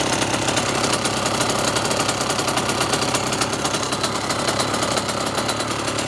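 Derbi Senda's two-stroke engine idling steadily through a Yasuni expansion-chamber exhaust, a fast even beat with no change in speed.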